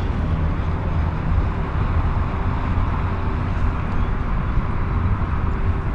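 Steady low rumble of distant city traffic, with a faint steady hum running through it.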